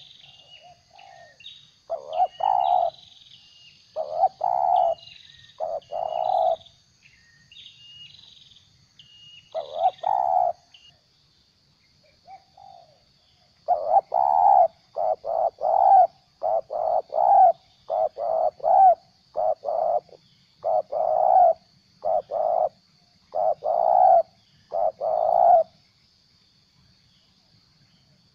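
Spotted dove (terkukur) decoy bird giving its stuttering 'gagap' coo: a few short coo phrases, then about halfway through a long run of quick repeated coos lasting about twelve seconds. Small birds chirp high in the first third, and a faint steady high insect hum runs behind.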